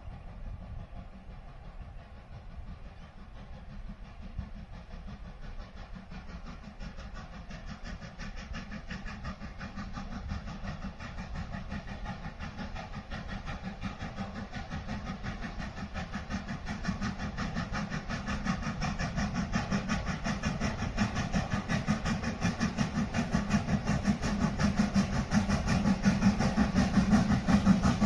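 South Australian Railways 520 class 4-8-4 steam locomotive 621 working hard up a grade. Its rapid exhaust beats grow steadily louder as it approaches.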